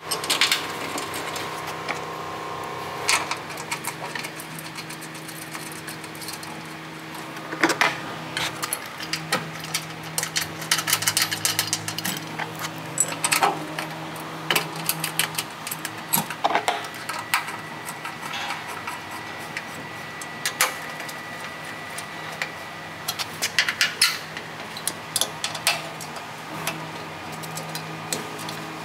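Irregular metallic clicks and clinks of a steel bracket and Allen bolts being handled and fitted by hand against the back of a wheel balancer's cabinet, over a steady background hum.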